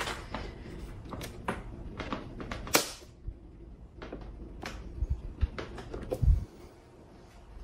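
Scattered light clicks and knocks from hands handling an opened battery's metal case and front panel. One sharper click comes near the third second, and a dull thump about six seconds in.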